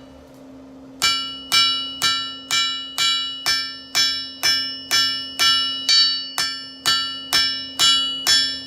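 Blacksmith's hammer striking hot steel bar stock on an anvil to square it out, in an even rhythm of about two blows a second, starting about a second in. Each blow rings with a clear, bell-like anvil ring that dies away before the next.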